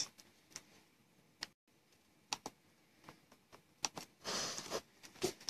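Typing on a Toshiba laptop keyboard: scattered single key clicks, with a short rustle a little past four seconds in.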